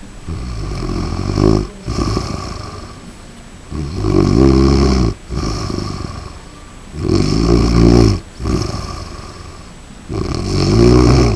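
Chihuahua snoring, like a person: four loud snores about three seconds apart, each followed by a shorter, softer breath.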